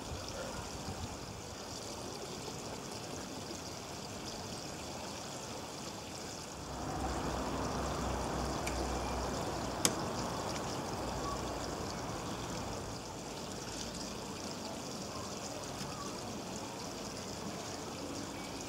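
Steady running water that grows louder about seven seconds in and eases back a few seconds later, with one sharp click near the middle.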